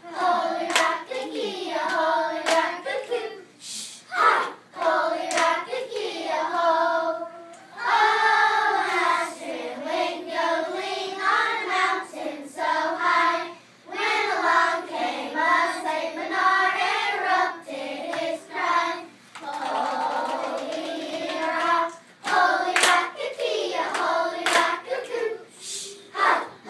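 A group of children singing a song together, with sharp claps between the sung phrases.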